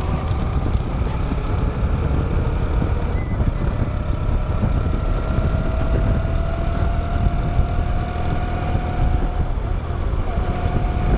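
A motor vehicle's engine running and slowly picking up speed, its pitch rising gradually over a heavy low rumble.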